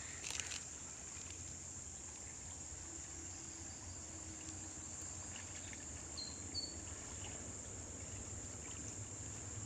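Steady high insect buzz over the low wash of a flowing creek, with two short high chirps about six seconds in.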